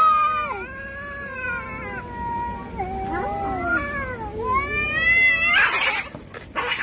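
Domestic cats yowling at each other in a standoff: long, wavering caterwauls that rise in pitch toward the end. About five and a half seconds in they break off into a short, harsh burst, with another just before the end.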